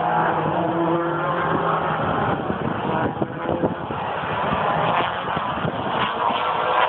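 Touring race cars running at speed around the circuit, their engine notes rising and falling.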